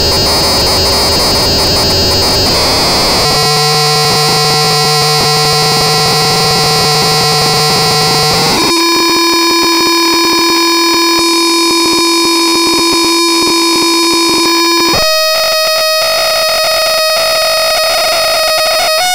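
Electronic audio output of an NE555 timer wired wrongly into a chaotic signal generator: a harsh noisy buzz that locks, about three seconds in, into a pitched buzzy tone. The pitch steps up twice, about nine and about fifteen seconds in, and the last tone is broken by brief dropouts.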